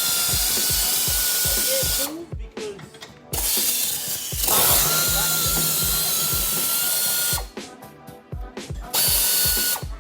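A power tool running in three bursts with a steady high whine, undoing the strut-top mount nuts: a short run at the start, a long one in the middle and a brief one near the end. Background music with a steady beat plays underneath.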